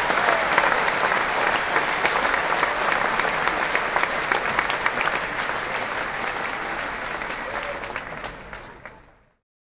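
Crowd applauding, dense clapping with a few voices calling out near the start; the applause dies away near the end.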